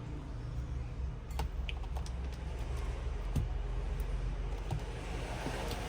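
Scattered light clicks and taps of hand tools working on a smartphone during a screen repair, over a steady low hum.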